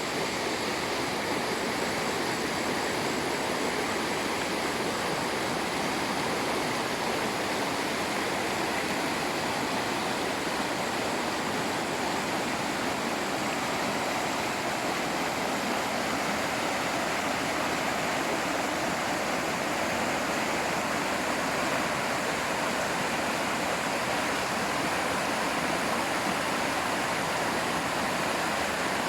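Waterfall rushing and splashing steadily, a constant roar of falling water.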